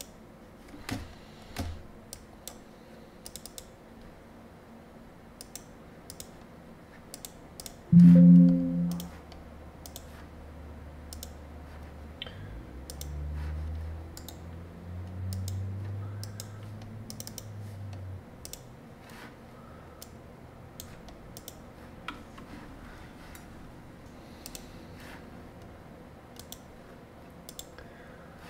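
Scattered clicks of a computer mouse and keyboard. About eight seconds in comes a loud low sound with a brief tone, followed by low droning sounds for several seconds.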